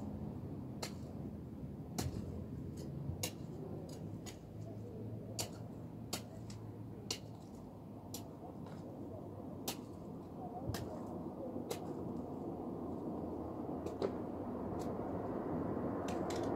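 Scattered sharp clicks, roughly one or two a second, from hand work among plants and gravel in a garden bed, over a low steady background rumble that swells near the end.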